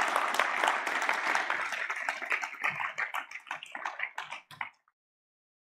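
Audience applauding, the dense clapping thinning to a few scattered claps before it cuts off suddenly near the end.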